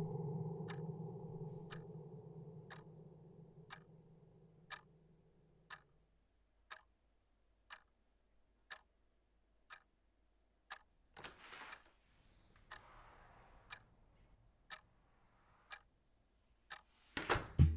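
Clock ticking steadily, about one tick a second, while a low held tone fades away over the first few seconds. A short noisy rustle comes about two thirds of the way through.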